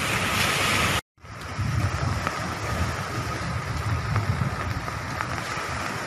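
Strong cyclone wind buffeting the microphone over the rush of rough surf. The sound drops out briefly about a second in, then carries on.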